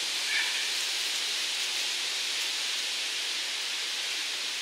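Steady, even hiss of forest ambience: wind rustling through the treetops.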